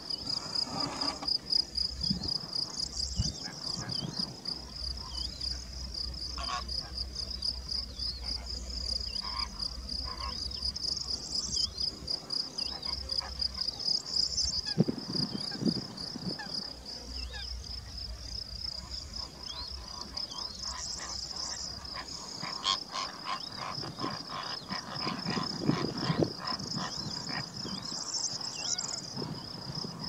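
Insects trilling in a steady, high, fast-pulsing chorus, with scattered faint low sounds underneath.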